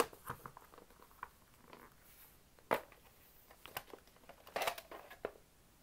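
Plastic VHS clamshell case being handled and opened: scattered light clicks and taps of the plastic, with one sharper click just under three seconds in and a few quick knocks near the end.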